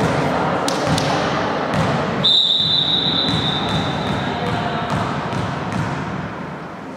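Sports-hall noise during a break in volleyball play: players' voices and a few thuds of a volleyball bouncing on the court floor. From about two seconds in, a steady high-pitched tone sounds and slowly fades.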